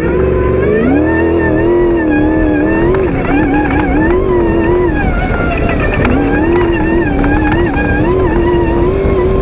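V8 off-road race buggy engine running hard at high revs, the pitch wavering up and down with the throttle. The revs climb about a second in, and they drop briefly about five seconds in before climbing again.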